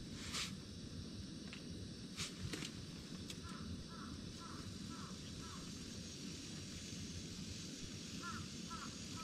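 A crow cawing in two runs of short repeated calls, about two a second, over a steady low rumble, with a few sharp clicks near the start.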